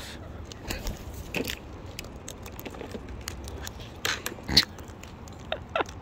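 Sulphur-crested cockatoo husking seeds with its beak in a plastic pot: a scatter of small sharp clicks and crackles. About four and a half seconds in, a louder snap as another cockatoo rips the lid off a plastic seed bucket.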